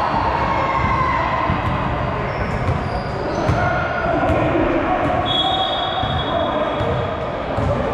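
Live gym sound of a basketball game: a ball being dribbled, with short high squeaks and players' voices in the background.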